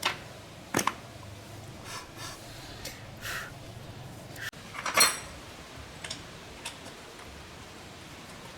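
Small metal parts and tools clinking and clanking as they are handled and set down, some strikes ringing briefly, with the loudest clank about five seconds in.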